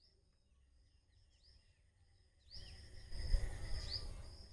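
Faint, repeated short bird chirps, about two a second, over a low rumble of background noise that grows louder about two and a half seconds in.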